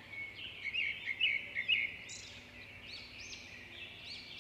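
Birds chirping: a steady run of short, arched chirps, with a louder flurry of calls about a second in.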